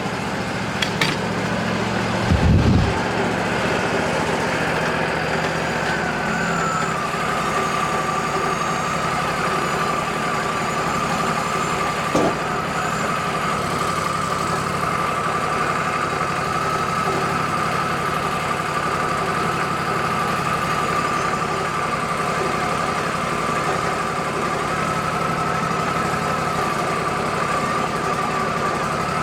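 Woodmizer LT40 band sawmill running steadily, with a whine that drops in pitch about six seconds in, holds, and climbs again near the end. A low thump comes a couple of seconds in, and a single sharp click near the middle.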